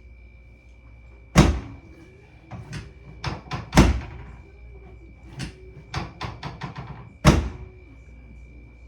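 Chiropractic drop table: three loud thuds as a drop section falls under adjustments, with lighter clicks and knocks between them, including a quick run of clicks near the end.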